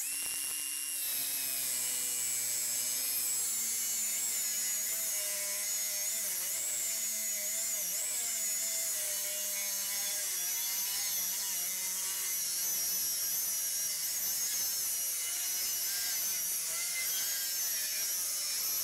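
Angle grinder with a cutting disc slicing through 6 mm mild steel plate: a steady, unbroken motor whine with the disc grinding into the steel. The cut is sped up to about two and a half times.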